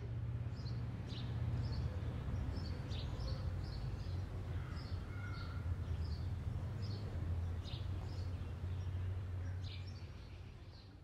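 Morning outdoor ambience: small birds chirping in short, repeated calls over a low steady rumble, fading out near the end.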